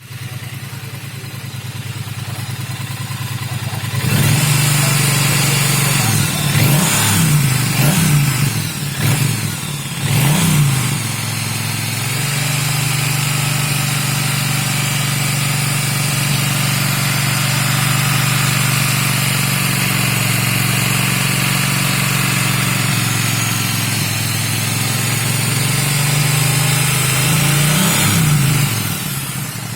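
Triumph Bonneville T100 parallel-twin motorcycle engine idling, then revved several times between about 6 and 11 seconds in. It holds a steady, louder running speed, is blipped once more near the end, and drops back down.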